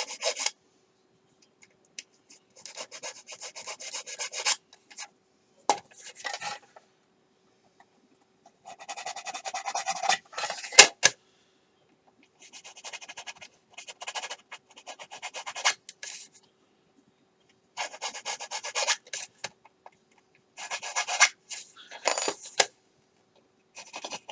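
Small hobby file rasping on a plastic model kit part, widening a window opening, in bouts of quick back-and-forth strokes with short pauses between. There is one sharp click near the middle.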